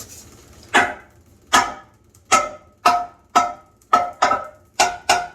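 A hammer striking a cast-iron boiler part again and again, about nine blows at uneven spacing, each with a short metallic ring.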